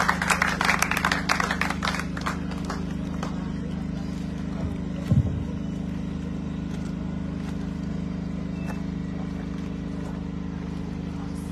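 Audience applause dying away over the first two seconds, leaving a steady low hum with a single thump about five seconds in.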